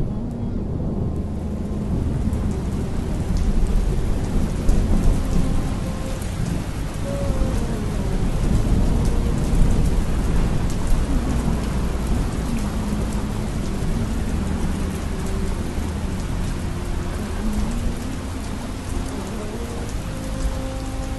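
Heavy rain pouring steadily, with thunder rumbling underneath and swelling louder a few times.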